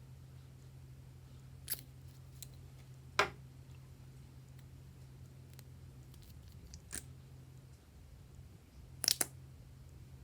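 A few sharp clicks over a low steady hum: one at about two seconds, the loudest at about three seconds, another at about seven seconds, and a quick double click near the end.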